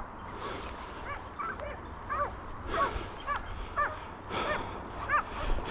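Hunting dogs barking and yelping in quick, overlapping calls at slightly different pitches, about two or three a second, over a low rumble of wind.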